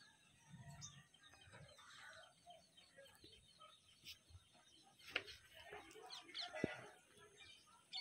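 Faint chirping of birds, with two sharp clicks or knocks in the second half.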